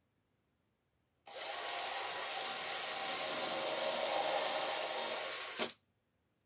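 Power drill driving a screw into the wooden base of a clothes rack. It starts about a second in, runs steady and even for about four seconds, and stops suddenly with a short knock.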